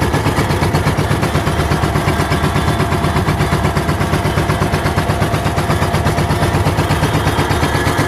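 Fishing boat's inboard engine running steadily under way, a loud, fast, even pulsing.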